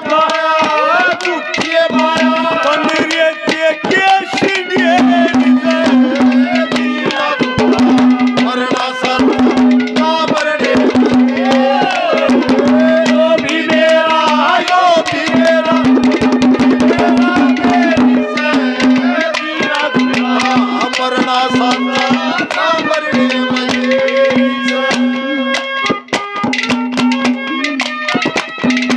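Live ragni accompaniment playing an instrumental interlude. A tabla-like hand drum keeps a busy rhythm under a wavering melody line, with a held low note that breaks off and returns.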